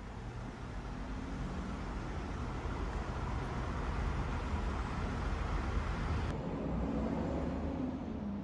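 Road traffic going by: a steady low engine rumble with a hiss of tyre noise that swells over the first few seconds and holds. The higher hiss drops off abruptly about six seconds in.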